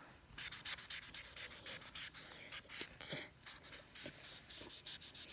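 Imagine Ink magic marker scribbling on a coloring-book page: quick, faint back-and-forth scratchy strokes of the felt tip on paper, several a second.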